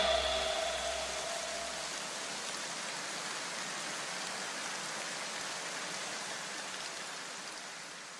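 Steady, even hiss like rain, with the last notes of music dying away in the first two seconds; the hiss fades out near the end.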